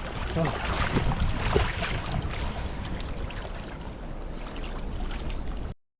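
Wind on the microphone and water splashing around the boat, with a few short sharp splashes in the first couple of seconds; it cuts off abruptly near the end.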